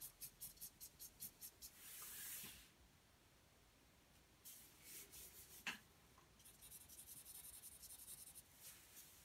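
Black marker pen hatching on paper, faint: quick short scratchy strokes, about six a second, then a longer rubbing stroke. After a pause there is a single sharp tap, and then a steady run of rapid hatching strokes near the end.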